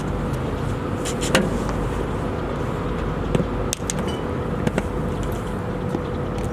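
Steady low machine rumble with a faint constant hum, broken by a few sharp clicks and knocks.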